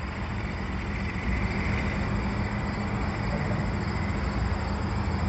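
Diesel locomotives of a long freight train running with a steady low rumble at a distance as the train moves slowly. A faint high whine rises briefly about a second in.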